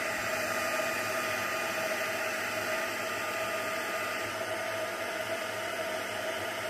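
Embossing heat gun blowing steadily: an even rush of air with a constant whine. It is melting embossing powder on a stamped card so that the powder sets.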